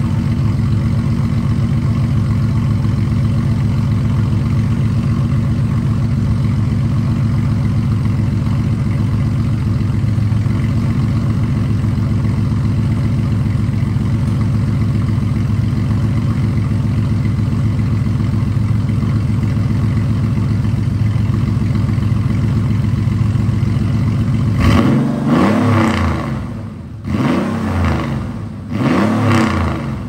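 Porsche 964 Carrera 2's air-cooled 3.6-litre flat-six running through a Fabspeed cup pipe (primary muffler bypass) and Dansk G-pipe, idling steadily and warm. Near the end it is revved twice, each rev rising and falling back.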